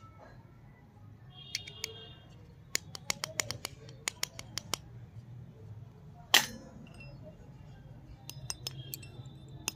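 Small sharp clicks and taps from fingers handling a miniature plastic toy toaster, a quick string of them with one louder click about six seconds in. Near the end a miniature steel plate gives a few light, briefly ringing clinks.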